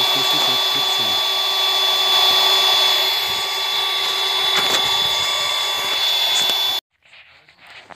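The small battery-powered electric blower of a homemade vacuum drum seeder runs with a steady high whine. It stops abruptly about seven seconds in.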